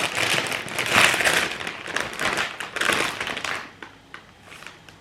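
A plastic crisp bag being handled and opened, crinkling and crackling loudly. It stops about three and a half seconds in, leaving a few faint rustles and clicks.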